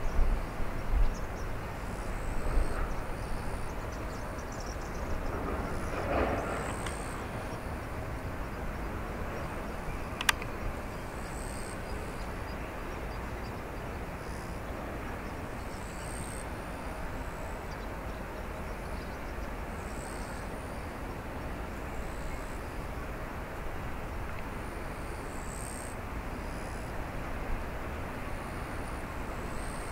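Airbus A350-900 airliner taxiing: a steady low rumble, with one sharp click about ten seconds in.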